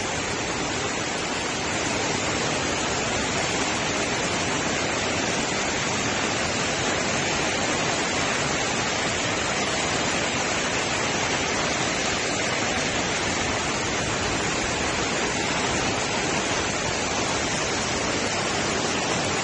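Floodwater rushing fast across a flooded road under heavy storm rain: a steady, even rushing hiss that does not let up.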